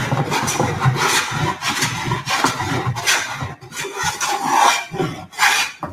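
Wooden-bodied long-sole jointer plane taking several strokes along the face of a board, the iron shaving wood with a rasping hiss at each pass. This is the jointing stage of flattening the board after scrub-plane work.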